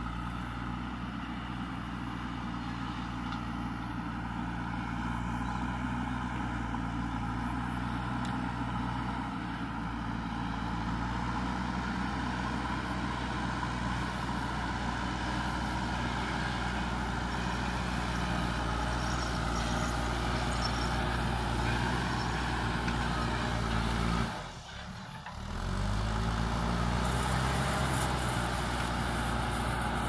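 JCB 3DX backhoe loader's diesel engine running steadily while the machine pushes soil with its front bucket, growing a little louder as it comes closer. The sound drops out briefly for about a second near three-quarters of the way through, then picks up again.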